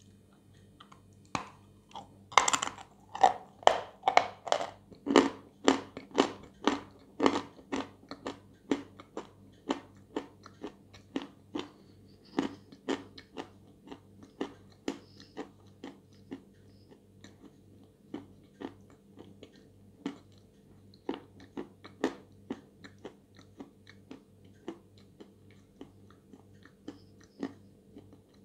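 Close-up crunching and chewing of dry edible chalk bitten from a block: a quick run of loud, sharp crunches for the first several seconds, then softer crunching chews at about one to two a second.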